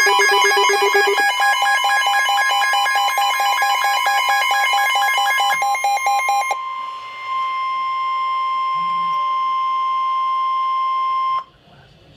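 Emergency alert tones: rapid pulsing electronic alarm beeps at several pitches over a steady single-pitch warning tone, the NOAA Weather Radio alarm tone that signals a warning is coming. The beeping stops about six and a half seconds in, and the steady tone carries on alone until it cuts off suddenly near the end.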